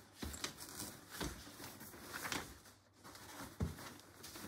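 Joolz Aer+ stroller seat fabric rustling as it is slid off the frame, with a few light clicks and knocks of the seat boards against the frame bars, the sharpest near the end.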